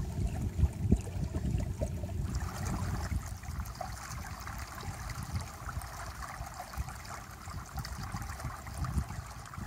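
Water rushing and gurgling past the stern of a moving boat, with wind rumbling on the microphone. The rush of water gets louder about two seconds in.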